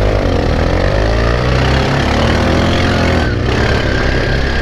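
Linhai 400S Dragonfly ATV engine running under way, its pitch dipping and then climbing again as the throttle changes. About three seconds in, the engine note drops back and a steady high whine carries on.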